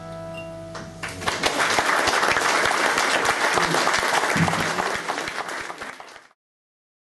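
The last chord of an Appalachian dulcimer rings away, then an audience breaks into applause. The applause cuts off suddenly about six seconds in.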